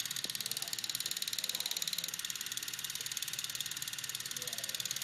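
Simulated Super 8 film-camera sprocket sound from the Super 8 app: a fast, steady clatter of many ticks a second over a high hiss.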